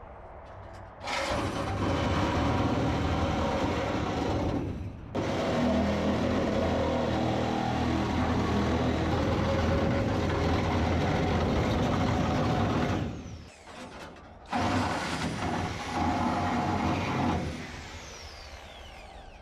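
A power cut-off wheel cutting through the old Charger body's sheet steel in three long passes with short pauses between them. Near the end the tool's high whine winds down as the wheel spins to a stop.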